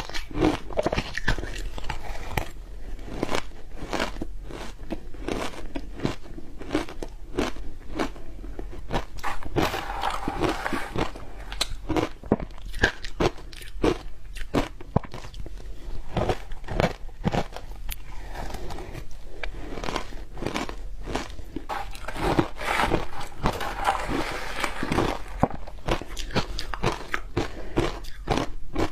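Close-up crunching of shaved ice coated in matcha powder being bitten and chewed, with a dense run of sharp, irregular crunches several times a second.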